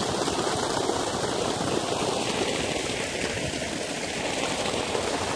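Steady rush of water gushing from a solar-pumped tubewell's steel discharge pipe and splashing onto sand.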